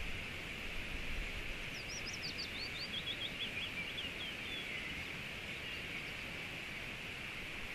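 A songbird sings one phrase of quick notes that step down in pitch, about three seconds long, over a steady rush of flowing river water.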